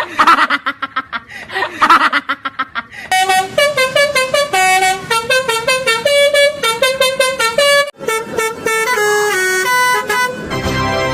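Multi-tone 'telolet' bus horn of the Basuri type. It first sounds a rapid run of short pulsed notes, then plays a quick tune of stepped notes that stops shortly before the end.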